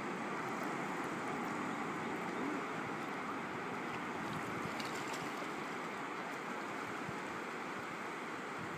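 Shallow water rippling and lapping over a sandy bottom: a steady, even wash of water.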